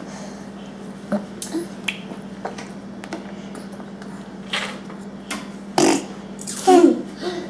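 A person making funny mouth noises: scattered short clicks and pops, with a couple of brief squeaky voiced sounds near the end.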